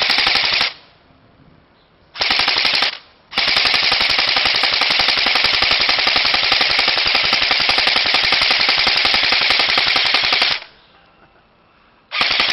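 APS ASR103 M4 CQB electric blow-back airsoft rifle firing on full auto in rapid bursts: a burst ending just under a second in, a short burst about two seconds in, a long burst of about seven seconds, then another burst starting near the end.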